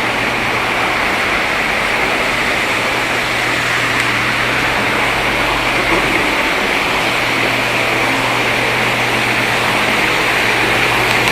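Rio de Janeiro Metro Line 2 train heard from inside the car: the steady rumble and hiss of the running train, with a low steady hum underneath.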